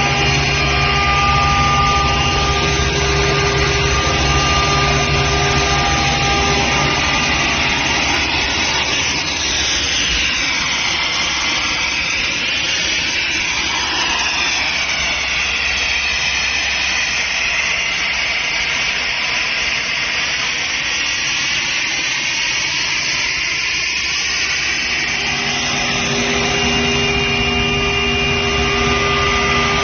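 Gardner Denver Champion 40 hp rotary screw air compressor running, a loud steady hum and rush of air. Its pitched whine fades for a stretch in the middle and comes back near the end.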